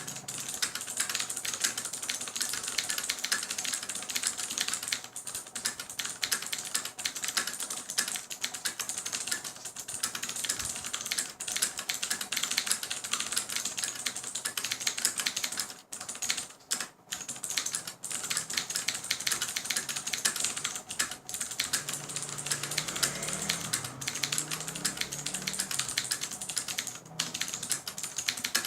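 Ducky One mechanical keyboard with clicky Cherry MX Blue switches being typed on: a fast, continuous run of sharp keystroke clicks, broken by two short pauses a little past halfway.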